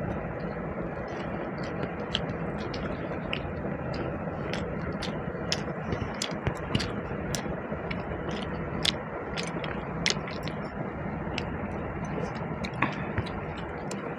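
Wet chewing and mouth clicks of someone eating basmati pulao with chicken curry, irregular smacks and ticks over a steady background hum.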